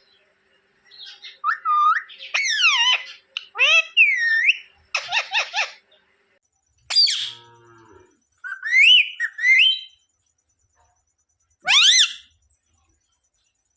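Pet parrot giving a string of shrill chirps and whistles whose pitch swoops up and down, with a harsh screech about halfway through and one last shrill call near the end.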